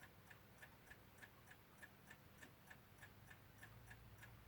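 Faint, steady ticking of a mechanical clock, about three ticks a second.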